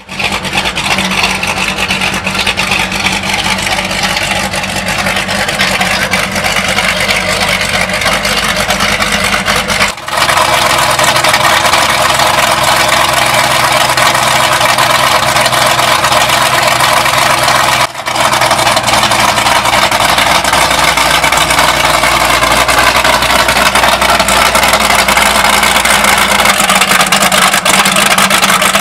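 Twin Mercury Racing 600SCI supercharged V8 marine engines with Whipple Stage 4 supercharger kits, running steadily out of the water through their transom exhausts. The sound dips briefly twice.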